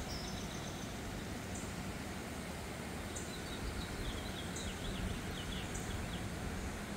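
Steady rushing of a river running high in flood, with birds calling over it: short high chips every second or so and a warbling song near the middle.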